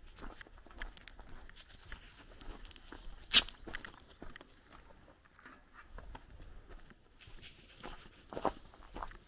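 Footsteps crunching on a gravel lane at a walking pace. There is one much louder, sharp crack about three and a half seconds in, and another strong one near the end.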